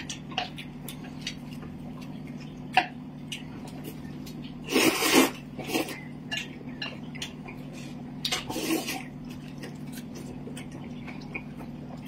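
People eating with chopsticks: small clicks of chopsticks against plates and bowls, with loud noodle slurping about five seconds in and a shorter bout around nine seconds.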